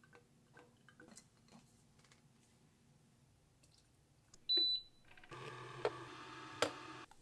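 Light taps and clicks of kitchen handling, then a single short, high electronic beep from an electric milk frother, followed about a second later by the frother's motor running with a steady hum and a couple of clicks before it cuts off suddenly near the end.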